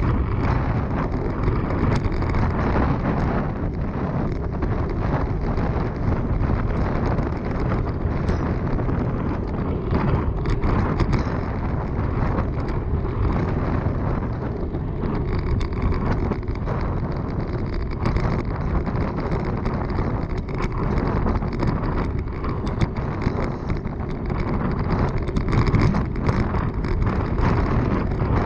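Steady wind rush and buffeting on the microphone of a camera riding on a moving bicycle, with the bike's tyres running on the paved trail underneath.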